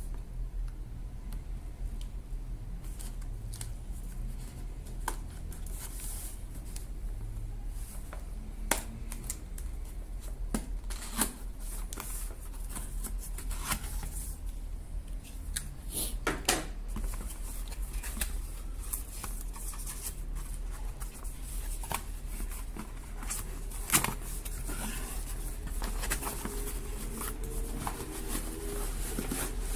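Cardboard box being unsealed and opened: a blade slitting the seal sticker, then cardboard flaps and inner packaging sliding, scraping and rustling, with scattered sharp clicks and taps. A steady low hum runs underneath.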